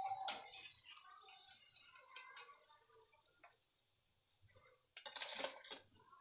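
Wire-mesh skimmer clinking against a steel frying pan and plate as fried cauliflower pakoras are lifted out of the oil: a single clink just after the start, faint small knocks, then a short cluster of metal clatters about five seconds in.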